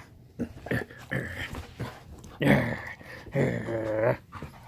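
Pit bull vocalising in low, drawn-out grumbles, with two longer calls in the second half, the last one wavering. It is in a playful mood and wants another treat.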